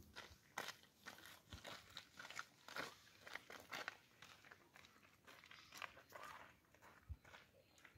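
Faint footsteps crunching on a gravel and dirt path, an irregular patter of small crunches.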